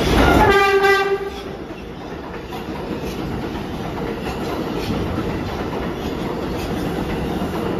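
New York City subway train sounding one short horn blast about half a second in, over the loud rumble of the train. The rumble then drops to a steadier rolling noise from the train on the tracks.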